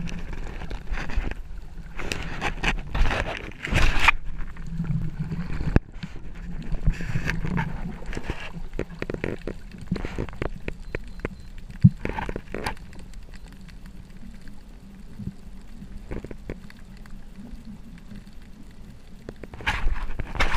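Muffled underwater noise from a camera in its waterproof housing: a steady low rumble with irregular gurgling and sloshing bursts, and a few sharp clicks.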